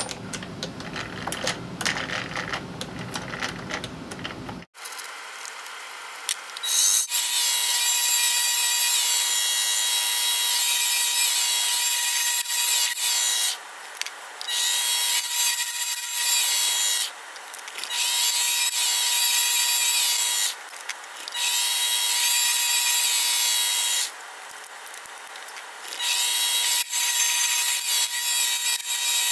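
Knocks and rubbing as the aluminum blank is handled in the lathe chuck, then a mini lathe cutting inside the bore of the spinning aluminum part with a boring bar: a steady high-pitched cutting whine over a steady machine tone. It breaks off and starts again several times.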